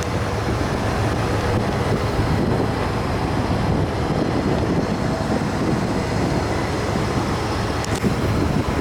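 1993 Ford Lightning pickup's 5.8-litre V8 running on the move, a steady engine and road noise with some wind on the microphone.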